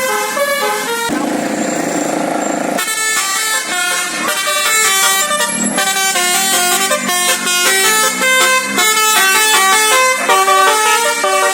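Bus 'telolet basuri' multi-tone horn playing a fast tune of short stepping notes, interrupted about a second in by a harsh, noisy blast lasting under two seconds.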